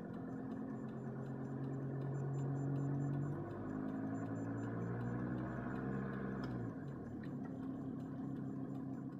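Volvo 850 TDI's five-cylinder turbodiesel engine revved in neutral, the revs rising and falling back twice.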